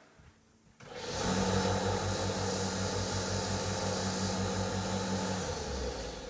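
A small electric motor, the kind in a handheld power tool, starts about a second in, runs at a steady speed with a hum and hiss, then winds down near the end.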